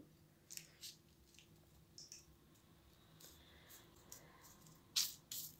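Faint scattered clicks and rustles of hands handling baking paper and coconut-coated pudding pieces, with two louder clicks close together near the end.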